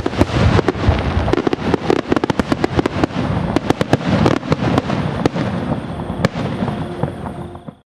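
Fireworks going off in quick succession: many sharp bangs over a steady crackle, thinning out near the end and then cutting off suddenly.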